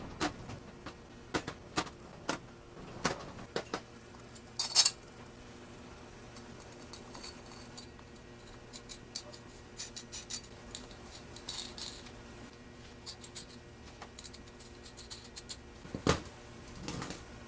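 Small metal parts being handled: irregular light clinks, taps and knocks, with a louder clattering knock a little under five seconds in and another about sixteen seconds in.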